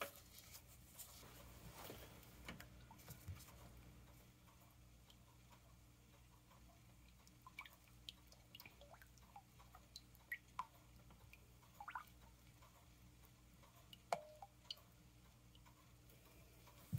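Near silence with faint, scattered wet clicks and taps from a silicone spatula hand-stirring lye water into soap oils in a glass bowl.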